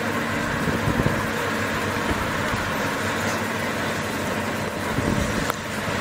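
An excavator's engine running steadily, a low even hum.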